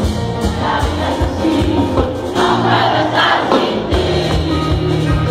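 Live cumbia band playing through a stadium PA, with a crowd cheering and singing along; the crowd's voices swell a little past the middle.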